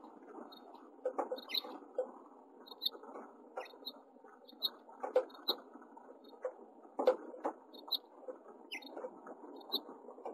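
House finch nestlings begging with short, thin, high squeaks, about one or two a second, while they are fed at the nest. Rustling and several sharp knocks from bills and bodies moving in the nest come in between.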